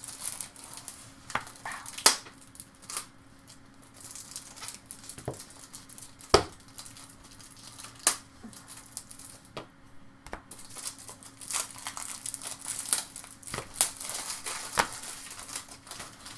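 Baseball trading cards being handled and sorted in the hands: stiff cardstock rustling and sliding, with several sharp clicks as the cards are tapped and set down.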